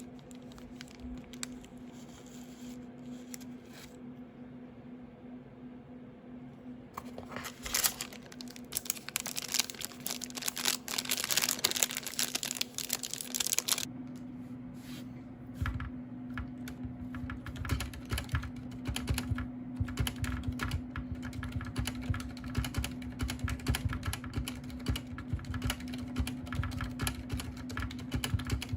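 Typing on a Ducky One 2 Mini mechanical keyboard with Cherry MX Silent Red switches. A few scattered keystrokes give way, after about seven seconds, to fast, dense typing with soft thuddy key presses. A steady low hum sits underneath.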